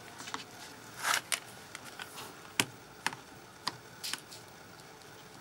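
Light clicks and taps of a quilting ruler and cutter being handled on a cutting mat while fabric strips are trimmed along a miter, with a short rasping cut about a second in. The sharpest tap comes midway.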